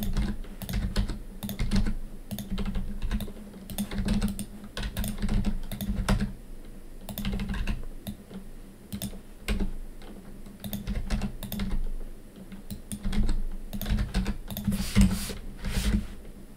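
Computer keyboard keys clicking in irregular short runs as shortcut keys are pressed, over a faint low hum.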